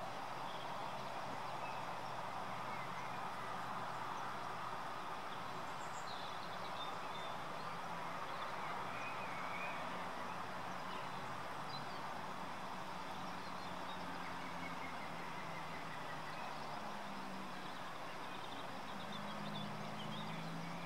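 Steady outdoor background hiss with a few faint, short bird chirps scattered through it, and a faint low hum in the second half.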